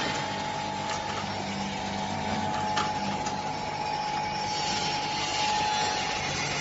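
Cauliflower processing line running: electric gear motors and conveyors giving a steady machine hum with a constant high whine, and a couple of light clicks.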